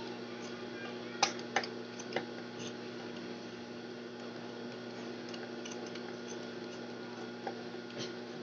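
Large fabric scissors snipping through layered cotton fabric, trimming the edge of a quilted potholder: a few sharp clicks about a second in and a couple of fainter ones near the end, over a steady hum.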